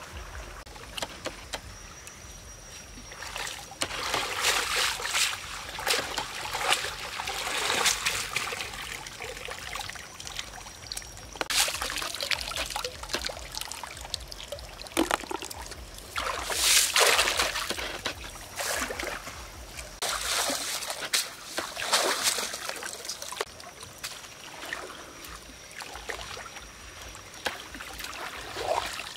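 Shallow river water splashing and trickling in irregular surges as people wade and scoop freshwater shellfish from the riverbed by hand.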